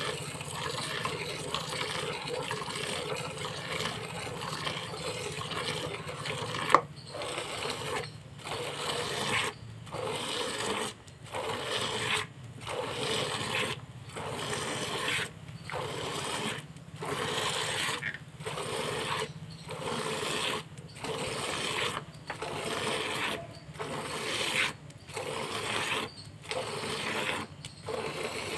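Hand-milking: streams of milk squirting from the teats into a plastic bucket partly filled with milk, a steady hiss at first, then a regular run of squeezes with short breaks about every second and a half. A single sharp click about seven seconds in.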